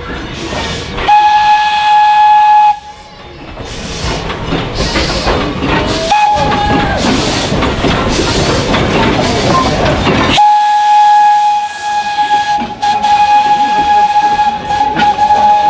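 Steam locomotive's whistle blowing three times: a blast of about a second and a half, a short toot, then a long blast held to the end. Loud steam hissing fills the gap between the blasts.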